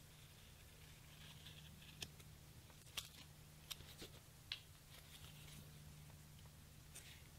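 Faint handling noises from a leather holster rubbed and turned in the hands, with a handful of light clicks and taps between about two and five seconds in, over a steady low hum.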